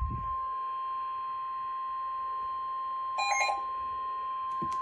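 NOAA Weather Radio warning alarm tone: one steady, high beep-like tone of about 1050 Hz, held without a break, signalling a warning that the radio is about to broadcast. A dull thump sounds right at the start, and a short extra beep of several pitches comes about three seconds in.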